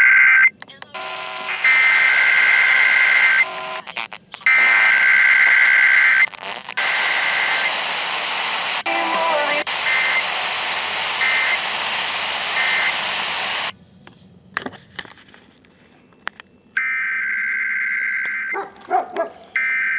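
Emergency Alert System SAME data header: harsh, buzzing two-tone data bursts sent three times, each about a second and a half long, followed by several seconds of loud hissing noise broken by short tone blips. Near the end, after a brief quiet gap, two more of the same bursts sound: the end-of-message signal.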